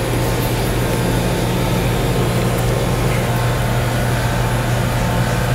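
Steady low mechanical hum with an even rushing noise, like ventilation machinery, holding at the same level throughout.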